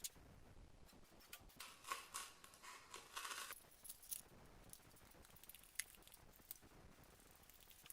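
Faint hand work on parts: a few short scratchy rasps about two to three and a half seconds in, with scattered light clicks and taps around them.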